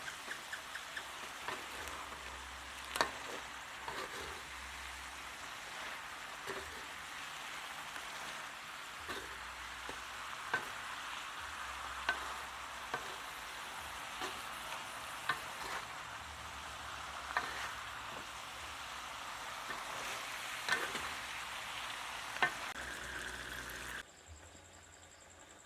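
Food frying in hot oil in a pan: a steady sizzle with scattered sharp crackles and pops. It cuts off abruptly near the end.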